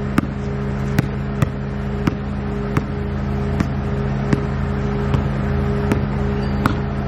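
Basketball dribbled on an outdoor hard court, a sharp bounce about every three quarters of a second, over a steady low mechanical hum.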